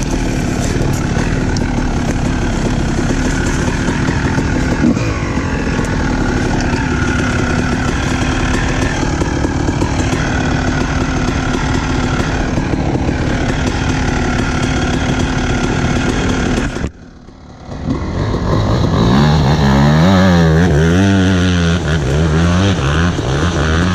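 Honda CR250R single-cylinder two-stroke dirt bike engine running under way. About 17 s in the sound drops out abruptly for about a second, then the engine comes back with its pitch rising and falling quickly as the throttle is worked on and off.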